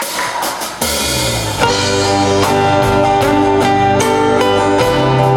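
Live band playing the instrumental intro of a ballad: guitar over bass and drums, the full band coming in about a second in.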